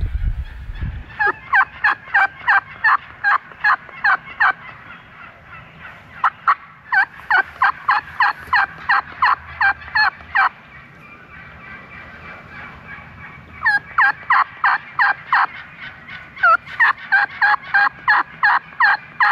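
Hen turkey yelps from a hunter's turkey call, loud and close: four long runs of sharp, evenly spaced notes, about three a second, with short pauses between the runs.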